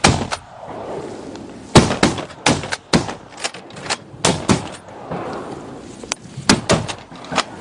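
Volley of about a dozen shotgun shots fired in quick, uneven succession by several duck hunters. Each is a sharp report with a short echo.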